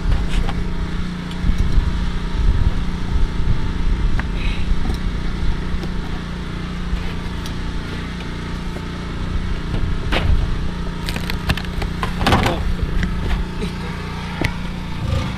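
A steady low hum with a rumble underneath, and a few sharp knocks and clacks in the second half as wooden hive boxes and frames are handled.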